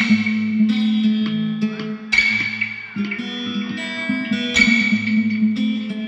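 Music: sustained chords struck about every two and a half seconds, each left ringing.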